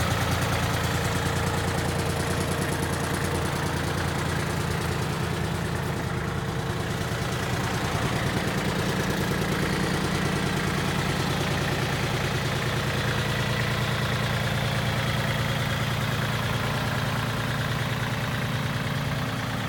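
Kubota L35 backhoe loader's diesel engine running steadily at an even, low speed.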